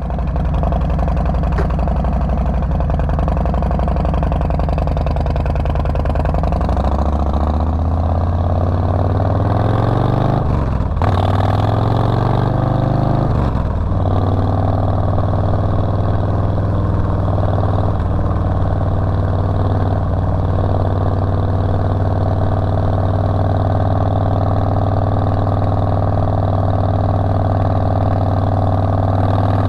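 Harley-Davidson Softail Standard's V-twin engine heard from the saddle as the bike accelerates, its note rising, breaking at a gear change about eleven seconds in, rising again, then settling to a steady cruising note for the second half.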